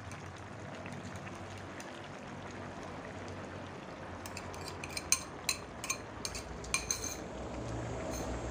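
Cap cay soup simmering steadily in a wok over a gas flame. From about four seconds in, beaten egg is poured into it from a bowl, with a run of light, sharp clinks for about three seconds.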